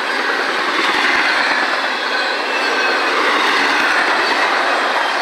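Double-stack intermodal well cars of a freight train rolling past: a steady loud rush and clatter of steel wheels on rail, with a faint thin squeal from the wheels.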